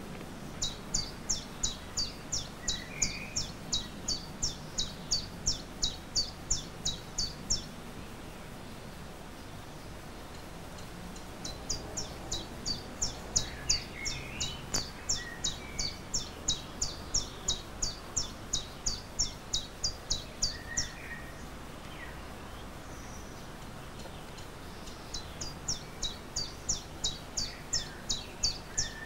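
A songbird repeating one short, high, steeply falling note about three times a second in three long runs, with pauses of a few seconds between them. Fainter chirps from other birds come in now and then over a low steady background.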